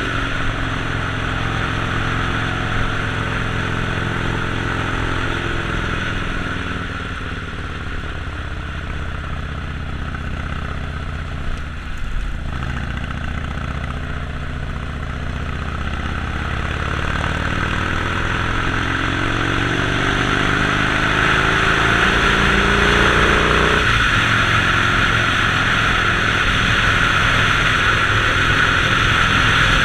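Harley-Davidson Sportster Forty-Eight's 1200 cc V-twin running under way, with a steady hiss above it. The revs fall off from about seven seconds in, then climb again from about seventeen seconds until about twenty-four seconds.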